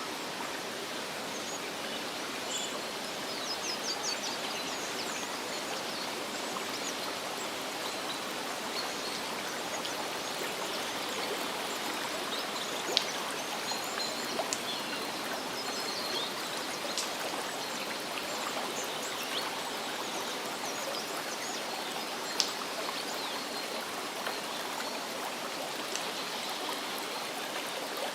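Steady rush of water falling and running over rock at a waterfall. A couple of sharp clicks stand out over the water, and there are faint high chirps near the start.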